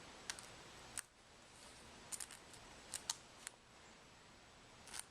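Faint, scattered sharp clicks and ticks, about eight in all, of broken glass fragments being pried and snapped off a Samsung Galaxy S3's frame with a razor blade.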